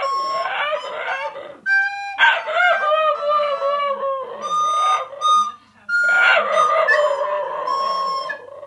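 Cairn terrier howling along with a recorder: long wavering howls that slide up and down against the recorder's steady held notes. There are brief breaks about two seconds in and just before six seconds.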